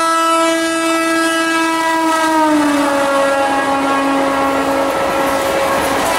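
Indian express train running through the station at speed, its locomotive horn sounding one long blast. The horn's pitch drops about two and a half seconds in as the locomotive goes past. The horn fades near the end, leaving the rumble and clatter of the coaches.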